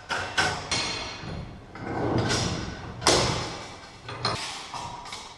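Sheet steel being cut with tin snips: a series of sharp metallic snaps and clanks with a ringing tail, a rougher grinding stretch about two seconds in, and the loudest clank about three seconds in.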